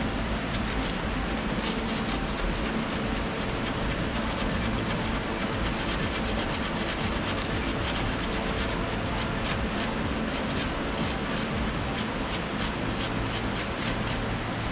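Steel wire brush scrubbed back and forth over the threaded bolt of a car's anti-roll bar link in rapid, even strokes, cleaning dirt and corrosion from the threads so the nut will undo more easily.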